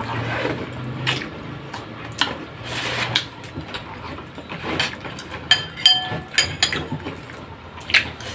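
Spoons and utensils clicking and scraping against dishes during a meal of soup, with a few ringing clinks of a spoon on a bowl between about five and a half and six and a half seconds in.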